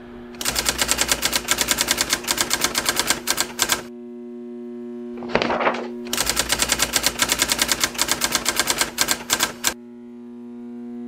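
Typewriter keys clattering in two rapid runs of about three seconds each, with a short whoosh between them, over a steady low drone.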